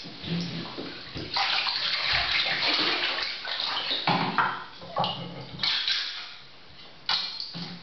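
Hand-held can opener being worked around the lid of a steel food can, in irregular bursts, with water sloshing in a filled bathtub as the person in it moves.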